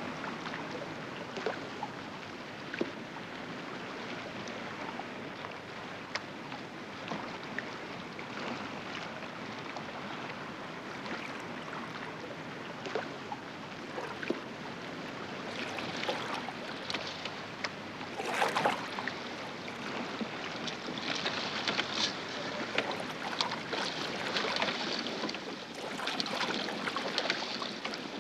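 Water slapping and lapping around a small wooden rowboat being rowed, with wind and scattered knocks and splashes from the oars. It grows louder in the second half, with one loud splashing rush about two-thirds of the way in.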